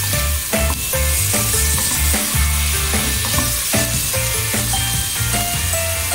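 Beef mince and chopped onions sizzling as they fry in a pot, stirred with a plastic spoon, with background music carrying a steady stepping bass line.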